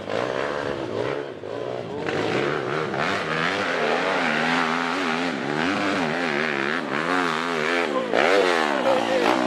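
Several dirt-bike engines revving up and down on a steep dirt hill climb, their pitches overlapping and changing constantly; near the end the nearest bike revs sharply up and back down.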